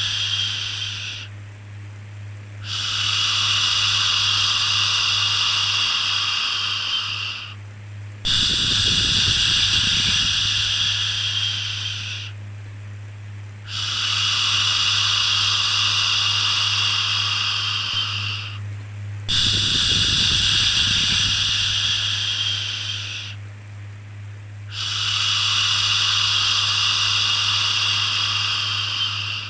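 Long shushing 'shhh' sounds repeated over and over, each held for about four to five seconds with a short pause between, over a steady low hum.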